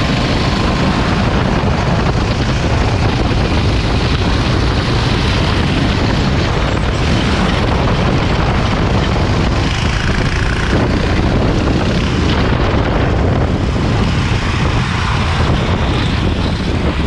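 Go-kart engine running steadily on track, with wind buffeting the microphone.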